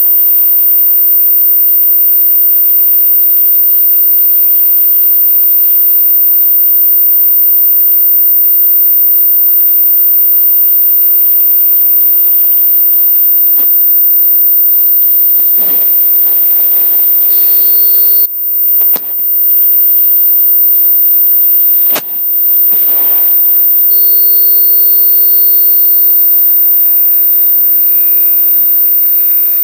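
A machine running with a loud, steady noise and a constant high-pitched whine. The noise briefly cuts out and resumes a few times past the halfway point.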